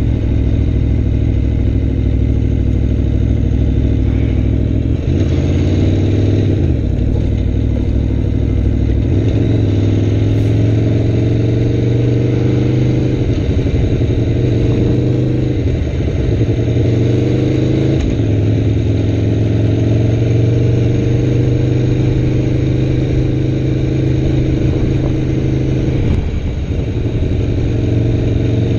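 Aprilia Tuono V4 1100 RR's V4 engine running under way at town speeds. Its pitch climbs several times and drops back each time as the bike pulls away and shifts up through the gears.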